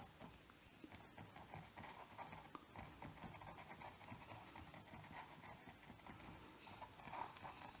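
Near silence, with faint scratching and dabbing of a paintbrush working acrylic paint on a canvas.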